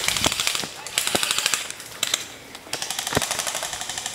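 Airsoft guns firing on full-auto: several rapid bursts of fast, evenly spaced clicks, broken by short pauses, with a few heavier knocks among them.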